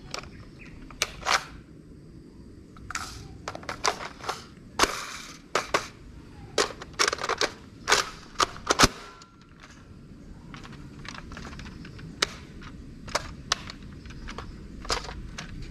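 Plastic clicks, clacks and rattles of a Nerf Rival blaster being handled and reloaded, its magazine and priming parts worked. A quick run of sharp clacks fills the first half, then only a few scattered clicks follow.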